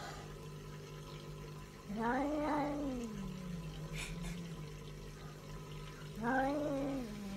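A domestic cat yowling twice, each a drawn-out wail about a second long that rises then falls in pitch; the defensive yowl of an alarmed cat, back arched and fur raised.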